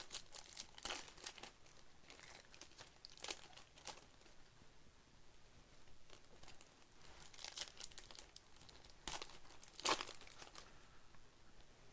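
Trading-card pack wrappers being torn open and crinkled by hand: irregular crackles and rips, the loudest about ten seconds in.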